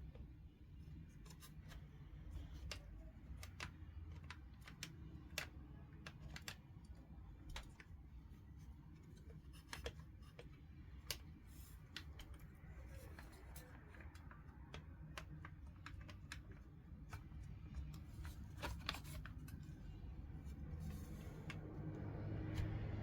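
Irregular small clicks and taps of hands and tools working on a graphics card during a thermal paste replacement, over a low steady hum.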